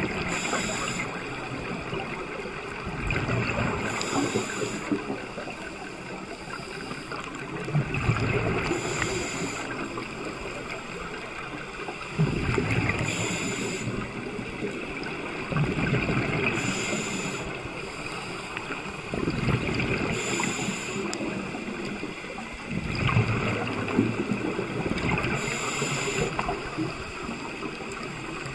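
Scuba diver breathing through a regulator underwater: breaths in and out repeating every three to four seconds, each exhale a rush of bubbles.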